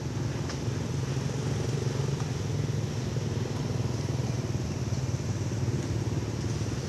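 Steady low rumble of an idling engine.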